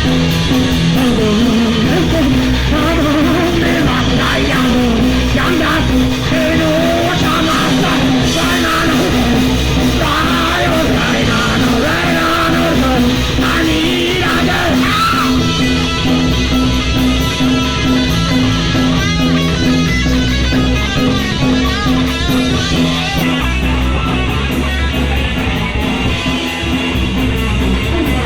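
Punk rock band playing live: distorted electric guitars, bass and drums, with shouted singing over the first half that gives way to the instruments alone after about fifteen seconds.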